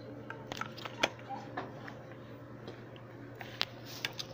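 Scattered light metallic clicks and clinks of an adjustable wrench and the loosened locknut on a scooter's clutch pulley assembly being handled, with two sharper clicks, about a second in and near the end.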